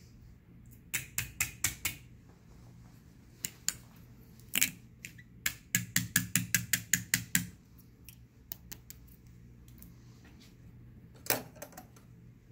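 Runs of sharp, rapid clicks: a quick run of about six a second in, a few single clicks, a longer fast run of about ten midway, and a short cluster near the end.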